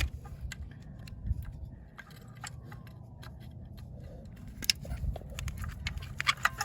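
Scattered small clicks and rattles of an engine wiring harness being handled and its plastic plugs pushed onto the VTEC solenoid and VTEC pressure switch connectors, with one sharper click about four and a half seconds in.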